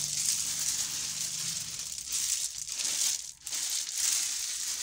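Gravel chippings scraping and rattling as they are raked and spread by hand over a pit floor, with a short pause about three seconds in.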